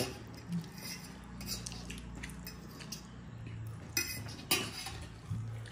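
Cutlery clinking and tapping against plates, a few scattered light clicks with the sharpest pair about four seconds in, over a faint steady low hum.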